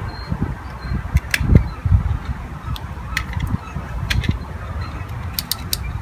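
Uneven low rumble of wind on the microphone, with scattered small clicks and taps.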